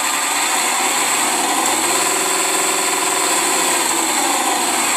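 G.T Power RC sound module playing a simulated car engine sound that follows the throttle: the pitch rises about a second and a half in, holds, then falls back toward idle near the end.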